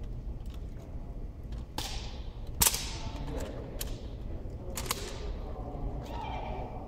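Sharp slaps and cracks of hands striking a wooden-stocked drill rifle during silent exhibition rifle drill: about five separate strikes, the loudest a little over two and a half seconds in, each echoing in the large hall.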